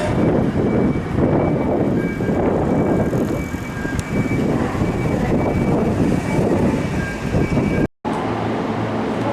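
Electric commuter train running along a station platform: a loud steady rumble of wheels and running gear with a faint high whine. It breaks off abruptly just before the end, giving way to a steadier low hum.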